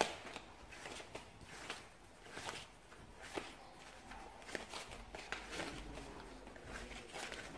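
Coloured pencil shading on paper: irregular scratchy strokes, about two a second, with a sharp click right at the start.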